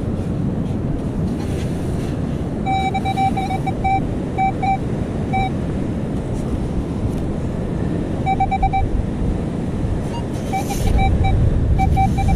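Metal detector sounding a repeated mid-pitched target tone in short bursts of beeps, signalling a buried metal target that turns out to be a washer. Under the beeps runs a steady rush of wind and surf.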